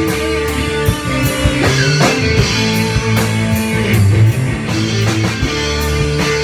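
Live rock band jamming: electric guitars playing sustained riffs over a drum kit keeping a steady beat with cymbal crashes.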